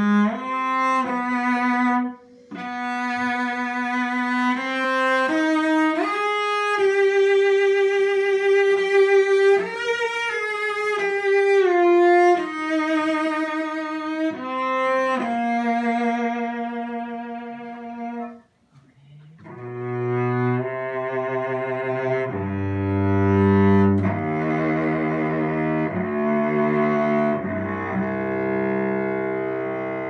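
Late 19th-century German cello played solo with the bow: a singing melody of held and gliding notes with a short break about two seconds in. After a brief pause around eighteen seconds, a lower passage follows, with deep notes on the low strings.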